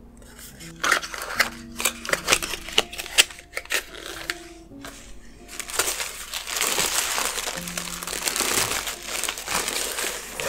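Thin tissue paper crinkling and rustling as hands dig through it: scattered sharp crackles in the first half, then a dense continuous rustle from about halfway. Soft background music plays underneath.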